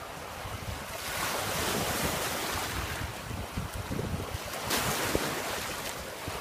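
Small waves washing onto a beach, with wind blowing on the microphone.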